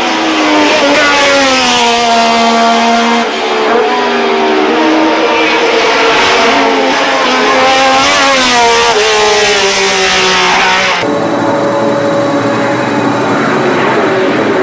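1970s Formula One car engines running at racing speed, the high engine note falling and rising with the gear changes, with a brief dip in loudness about three seconds in. About eleven seconds in the sound cuts abruptly to another car's engine note.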